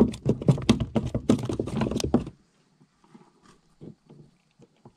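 A small bass flopping on the plastic floor of a kayak: a fast run of loud thumps and slaps for about two seconds, stopping suddenly, followed by a few faint taps.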